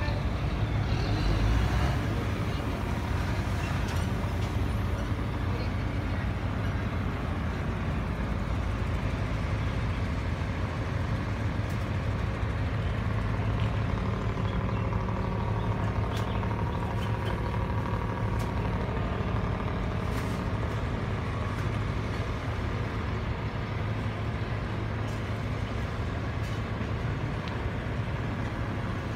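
Engines running steadily, a low drone, with faint voices in the background.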